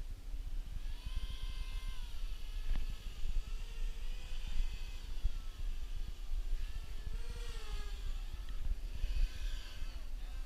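Electric motors of a QAV250-clone racing quadcopter whining, the pitch rising and falling several times as the throttle changes, over a steady low rumble.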